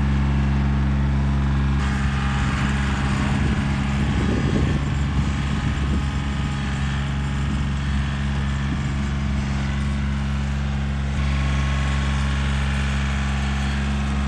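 Kioti tractor's diesel engine running steadily, its low note turning rougher and uneven from about two seconds in and settling again near the end.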